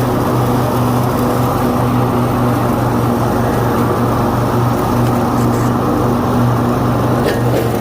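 Engine running steadily at a constant speed, with a steady low hum that does not change.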